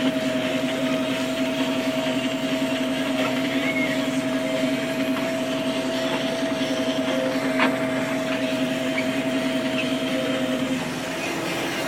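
Massey Ferguson 6150 tractor's diesel engine running steadily with a constant whine while ploughing. It gives a single sharp click about two-thirds through, and the steady note changes and drops slightly shortly before the end.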